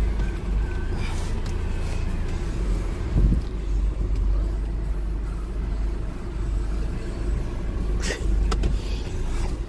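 Steady low rumble of vehicle traffic, with a sharp click about eight seconds in.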